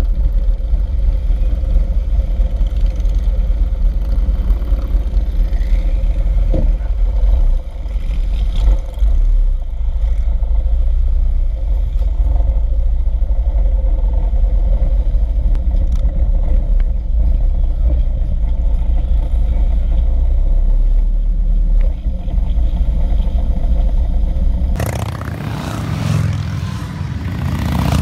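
Motorcycles riding in a pack at road speed, with heavy wind rumble on a microphone mounted on one of the bikes, over the engines. Near the end it changes abruptly to a column of motorcycles running past.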